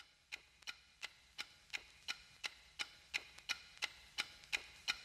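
Steady ticking, about three sharp ticks a second, each with a short ringing tone, slowly growing louder.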